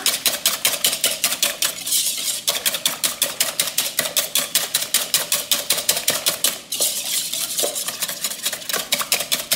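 Wire balloon whisk beating a thin liquid mixture of milk, yeast, sugar and egg in a bowl by hand: a fast, even rattle of the wires striking the bowl, about seven strokes a second, with a brief break a little before the end.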